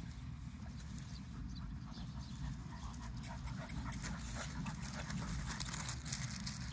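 Dogs barking in the distance, with scattered crunching on gravel from about three seconds in.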